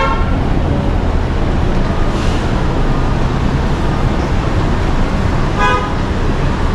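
City street traffic: a steady rumble of passing vehicles, with two short car-horn toots, one at the very start and one near the end.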